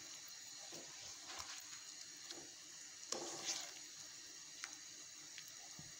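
A slotted spatula stirs vermicelli in simmering milk in a pan, making faint wet squishing and scraping over a low bubbling hiss, with a few soft knocks against the pan. The milk is coming to the boil as the sheer khurma thickens.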